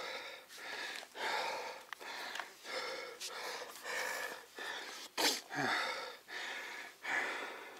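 A mountain biker breathing hard and fast, catching his breath after exertion, in and out with a breath roughly every second, with one sharp, loud puff about five seconds in.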